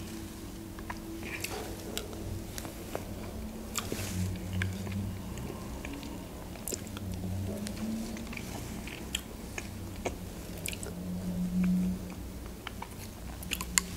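Close-miked eating of ice cream with raspberries and blueberries: chewing and wet mouth sounds with scattered light clicks of a spoon.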